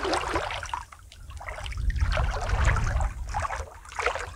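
Water splashing and trickling in irregular bursts over a low rumble, quieter for a moment about a second in.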